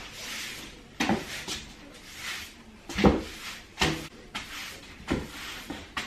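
Broom sweeping a tiled floor: a series of soft brushing swishes about a second apart, with several sharp knocks in between.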